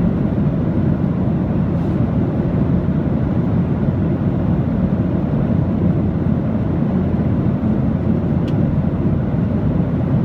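Aircraft in flight: a steady, even deep rumble with a softer hiss above it, unchanging throughout.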